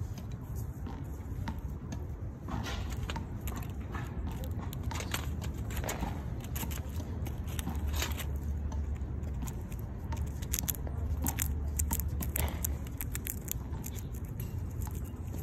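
Irregular dry crackling and clicking as a gray squirrel moves about on dry leaves close to the microphone, over a steady low rumble.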